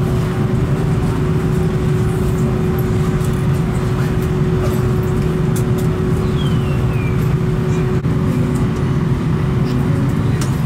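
Steady airliner cabin noise: a constant low rumble with a steady hum running through it.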